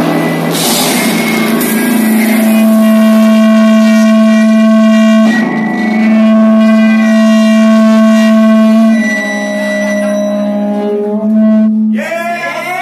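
Electric guitar feedback left ringing through the amplifiers at the end of a rock song: a loud, steady drone that shifts pitch a couple of times. It cuts off near the end, and the crowd starts cheering.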